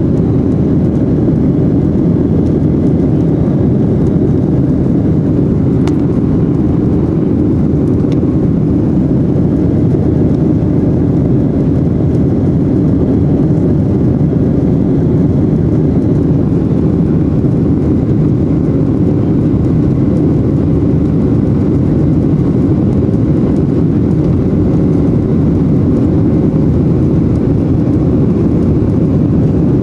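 Steady engine and airflow noise inside the cabin of a Boeing 737-800 in flight, from its CFM56-7B turbofans; a deep, even noise that holds level throughout.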